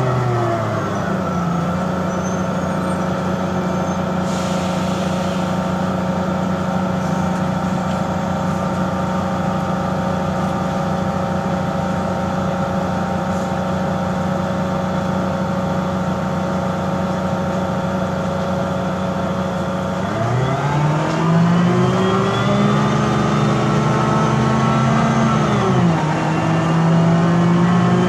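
Mercedes-Benz O405G articulated bus's diesel engine with Voith DIWA 854 automatic gearbox. The engine runs down and then holds a steady note for most of the time. About twenty seconds in it pulls away, its pitch climbing, drops at a gear change about six seconds later, and climbs again. The engine is described as bad, making a weird sound.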